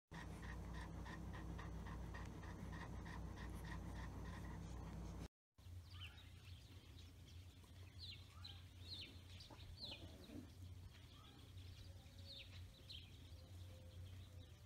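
Faint dog sounds over a low steady hum. While newborn puppies nurse there are quick, regular faint squeaks about four a second. After a cut come a few short, high, falling whines.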